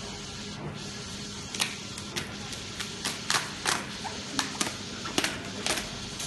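Flatbed inkjet printer running with a steady hiss as it prints on EVA foam mats. From about a second and a half in, it is joined by a series of sharp, irregular clicks and taps.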